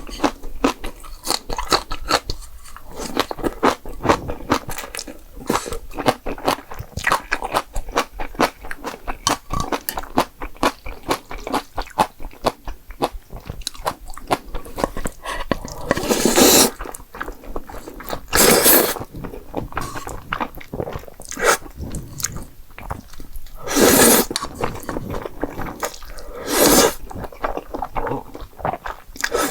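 Close-miked eating of jjapagetti noodles and spicy green onion kimchi: rapid, wet chewing and mouth clicks throughout, with four louder, longer noises each lasting up to about a second partway through.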